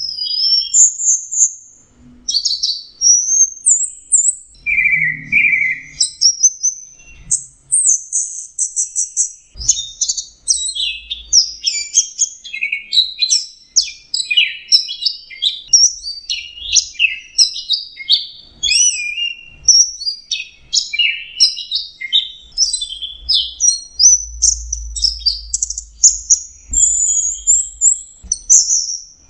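Orange-headed thrush singing a long, varied song of quick whistled phrases and trills, with hardly a pause.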